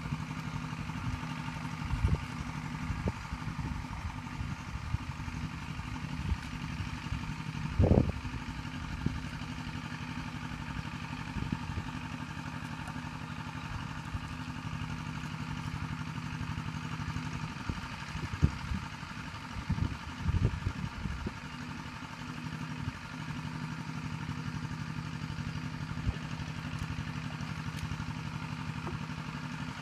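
Steady hum of a small engine running at idle, with a few splashes and thuds in shallow mud and water: the loudest about eight seconds in, and a cluster near the end of the second third.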